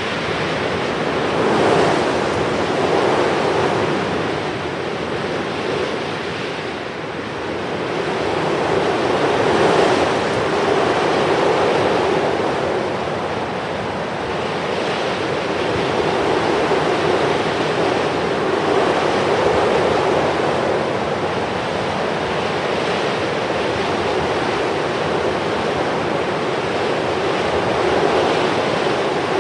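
Sea surf washing in, a steady rushing noise that swells and ebbs every few seconds.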